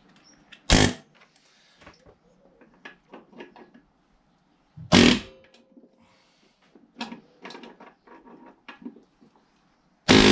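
Short bursts of a pneumatic air hammer driving down on the crankshaft end of a Briggs & Stratton 625E lawnmower engine to knock the flywheel loose, once about a second in and again about five seconds in. Light metallic clicks and knocks follow, and another burst starts right at the end.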